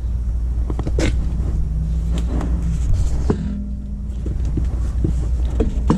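A few sharp metal clicks and knocks from handling the wheel and tools while a tire is refitted, over a steady low rumble.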